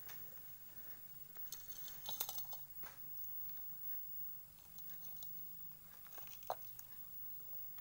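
Durian husk being handled and pried apart by hand: faint scattered crackling and tearing, a cluster of crackles about two seconds in and one sharp click about six and a half seconds in.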